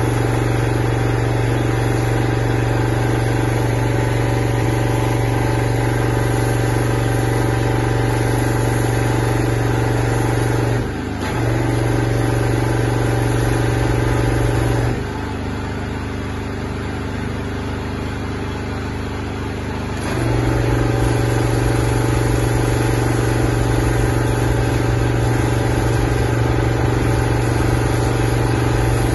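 Petrol pressure-washer engine running steadily under load while high-pressure water is jetted over the roof tiles. It quietens briefly about 11 seconds in, and again from about 15 to 20 seconds in.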